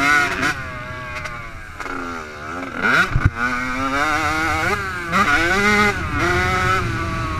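Yamaha YZ85 two-stroke motocross engine revving hard, its pitch climbing and dropping several times as the throttle is worked and gears change, with a brief thump about three seconds in.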